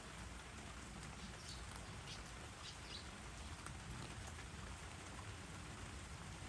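Steady rain falling, with a few short, high clicks between about a second and a half and three seconds in.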